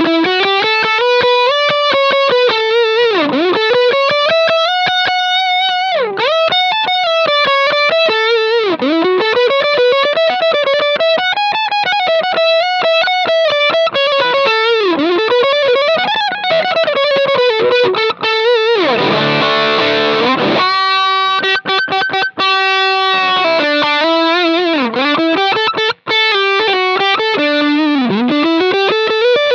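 Stratocaster-style electric guitar played through a Sinvertek Drive N5 Plus distortion pedal set to its high gain-structure mode: a heavily distorted lead line of single notes with string bends and vibrato. About two-thirds through, a chord is strummed and left to ring before the single-note line resumes.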